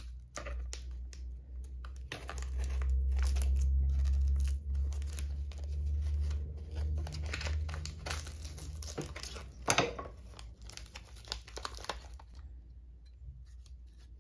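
A cardboard mailer and its plastic wrapping being torn open and handled on a tabletop: tearing, crinkling and rustling. A low rumble runs from about two to eight seconds in and is the loudest part, and there is one sharp click near ten seconds in.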